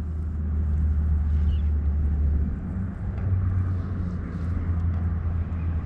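A steady low rumble with a faint hiss above it, easing slightly about halfway through.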